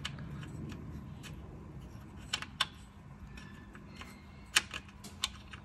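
A handful of small, sharp metallic clicks at irregular intervals as a nut is fiddled by hand onto a stud of a clutch slave cylinder bracket, trying to start it on the thread, over a low steady hum.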